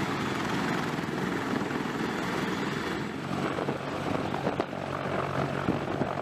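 Sikorsky CH-53 heavy-lift helicopter's rotors and turbine engines running steadily. The sound changes about three seconds in to a low, close helicopter in flight, with a more choppy rotor beat.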